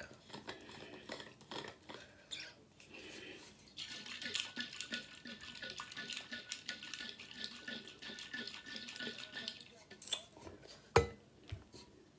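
Insulated metal water bottle shaken to mix a drink whose flavour has settled at the bottom, the liquid sloshing inside for several seconds. It is then set down on the table with one sharp knock near the end.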